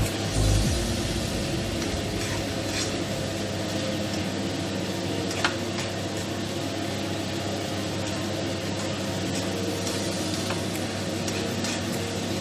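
Shrimp and cucumber sizzling steadily in a frying pan as they are stir-fried, with a few short clicks and scrapes of the utensil against the pan, the sharpest about five and a half seconds in. A steady low hum runs underneath.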